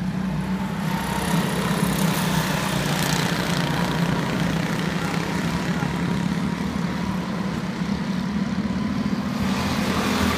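Engines of a pack of small race cars running on a track: a steady engine drone, joined about a second in by a higher hiss that lasts until near the end as the cars come round the turn toward the microphone.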